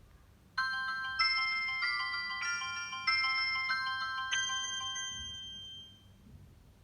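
Samsung SM-B310E phone ringtone: a short bell-like melody of about eight notes, one a little over every half second, with the last note ringing out and fading away near the end.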